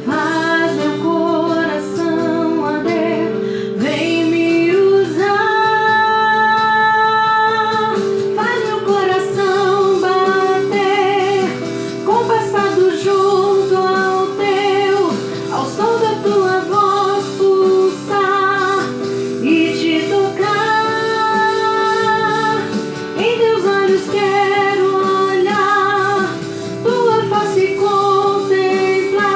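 A woman sings a Portuguese gospel worship song over instrumental accompaniment, holding some notes long with vibrato.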